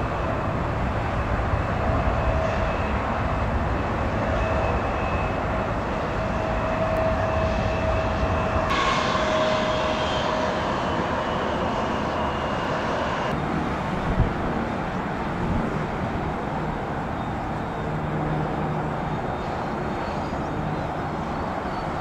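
Jet airliner engines running loudly with a deep rumble and a thin steady whine, then a falling whine for a few seconds past the middle. A single sharp knock about two-thirds of the way in.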